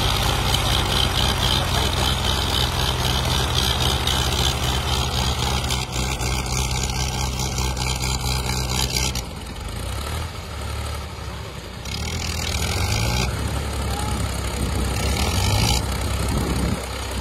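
Two old diesel tractors, a Ford and a Mahindra, running hard under full load as they pull against each other, their rear tyres spinning and digging into sand. The engine sound eases about nine seconds in and builds again a few seconds later.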